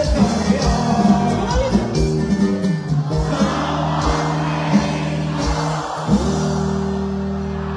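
Live regional Mexican band music over a PA, with sousaphone bass lines, drum hits and singing; for the last couple of seconds the band holds a long low chord.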